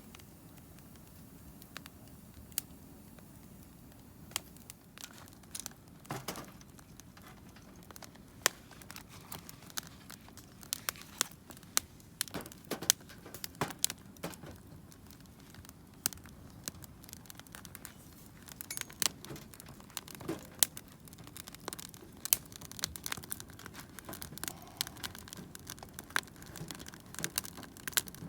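Wood campfire crackling, with sharp irregular snaps and pops that come more often after the first several seconds.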